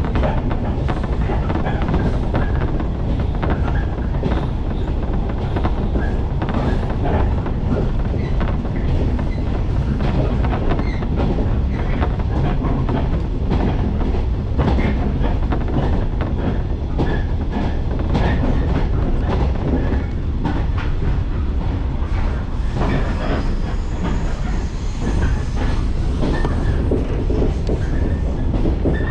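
Inside the car of a Shinano Railway electric local train running along the line: a steady low rumble of wheels and running gear, with a continual irregular clickety-clack of the wheels over the rails.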